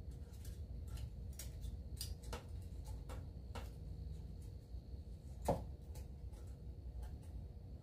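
Light metal clicks and taps as a feeler gauge blade is worked against the valve adjuster at the cylinder head, with one louder click about five and a half seconds in, over a low steady rumble.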